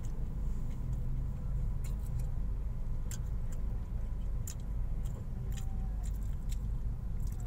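Steady low rumble heard inside the cabin of a Honda Mobilio idling in stopped traffic, with a few sharp ticks scattered irregularly through it.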